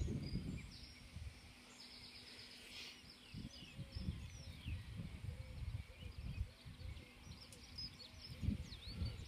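Small birds chirping and twittering, with wind gusting on the microphone in low rumbles.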